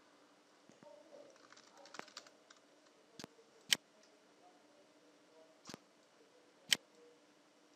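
Computer mouse clicks: four sharp clicks in the second half, with faint scattered tapping before them, over a faint steady hum.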